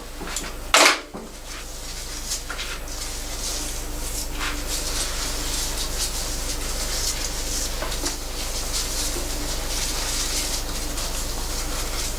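Two sharp clacks in the first second, then water running from the salon shampoo basin's spray head as a steady hiss that builds over a few seconds and holds.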